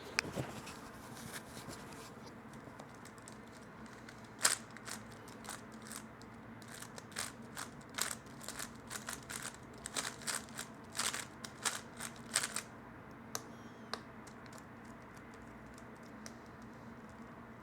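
3x3 Rubik's speedcube being turned by hand, plastic layers clicking and clacking: a few separate clicks at first, then a fast run of turns from about six seconds in that stops at about twelve and a half seconds.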